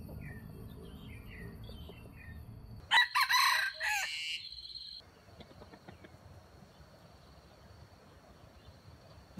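A junglefowl rooster, the trap's decoy bird, crows once about three seconds in: one loud call lasting about a second and a half. Faint small-bird chirps come before it.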